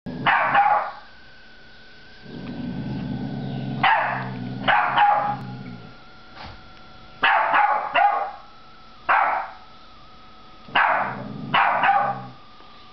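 Dogs at play: about ten sharp barks in clusters of one to three, with low growling between them twice.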